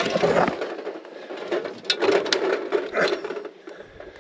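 Clunks, clicks and scraping of a car battery and its cables being handled and set in place, with several sharp knocks along the way.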